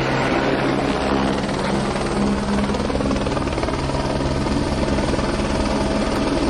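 A helicopter running steadily: a constant engine and rotor drone with a steady low hum.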